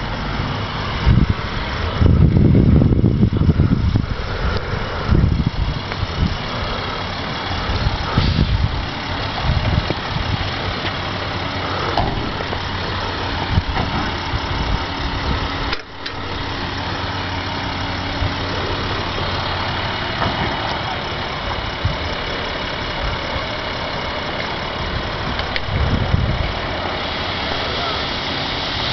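Emergency vehicle's engine idling steadily, with heavier low rumbles about two to four seconds in and again near the end.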